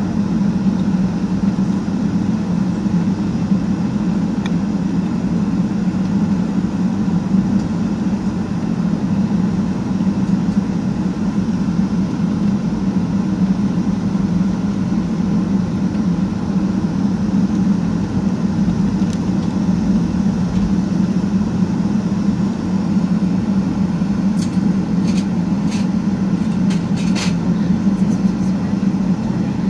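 Boeing 757-200 taxiing, heard from inside the passenger cabin: a steady low engine and airflow drone at taxi power. A few short clicks or rattles come near the end.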